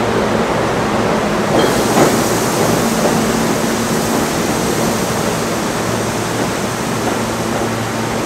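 Old New York City subway train pulling out of the station and running away down the track: a loud, steady rumble of wheels on rails, with a brighter hiss joining about a second and a half in.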